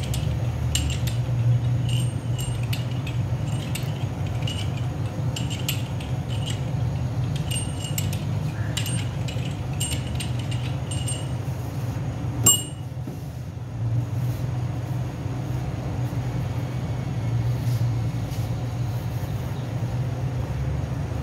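Steady low machine hum in a working bakery, with light metallic clinks recurring every second or so through the first half and one sharp knock about twelve seconds in.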